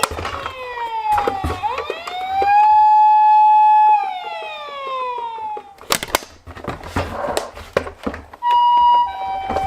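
Toy ambulance siren from a minicar's sound unit: a wailing tone that falls, rises to a held note and slides away, then a few sharp clicks, and near the end a two-tone hi-lo ambulance siren alternating between two notes.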